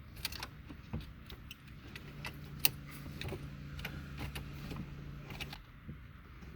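Irregular small plastic clicks and rattles as wiring harness plugs are handled and pushed into the back of a Uconnect head unit. A low steady hum runs under the clicks through the middle.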